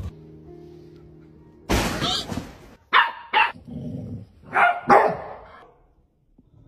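Dog barking: one longer bark about two seconds in, then two quick pairs of sharp barks around three and five seconds in.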